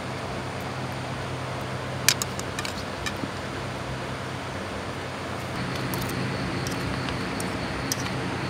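Spoon and fork clinking and scraping against a bowl of rice several times, loudest about two seconds in, over a steady low hum.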